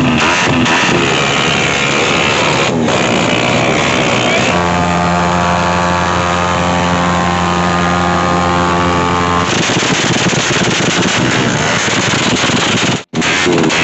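Motorcycle engines being revved hard in quick succession, with sharp pops from the exhaust at first. Then one engine is held at a steady high rev for about five seconds while the rear tyre spins in a burnout, followed by more rough revving. The sound cuts out briefly near the end.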